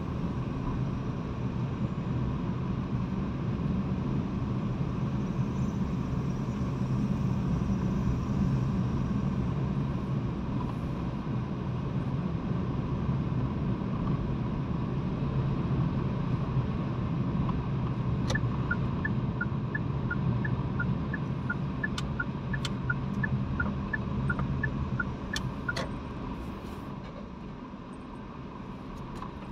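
Steady engine and road hum heard inside a car's cabin as it drives slowly. For several seconds past the middle, an even tick-tock of about three ticks a second is heard, like a turn-signal relay, with a few sharp clicks among it. The hum eases off near the end as the car slows.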